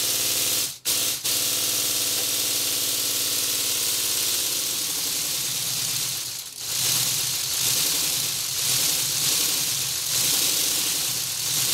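Lego pneumatic inline-12 engine running: a steady hiss of compressed air with a fast plastic rattle from the pistons and crankshaft. The sound drops out briefly twice about a second in, its running note shifts lower about four seconds in, and it dips briefly again a little past six seconds.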